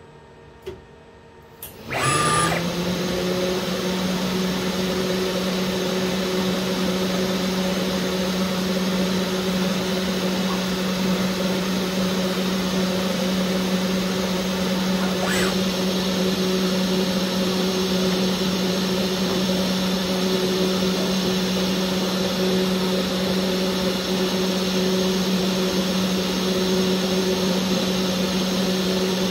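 High-speed engraving spindle starting about two seconds in, coming up to speed almost at once, then running steadily at 12,000 rpm with a steady hum and hiss while its bit engraves a black metal tube turned on a CNC lathe. One brief tick about halfway through.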